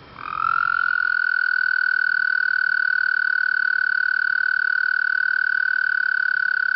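A frog singing one long, steady trill of about six and a half seconds, slightly lower in pitch as it begins, then holding one high pitch until it stops abruptly.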